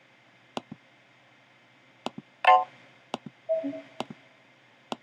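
Computer mouse clicks, with two short Mac OS 9 alert sounds previewed through the SheepShaver emulator as they are picked from the Alert Sounds list, about halfway through and a second later. The second steps down from a higher note to a lower one. These alert sounds show the emulated sound output is working.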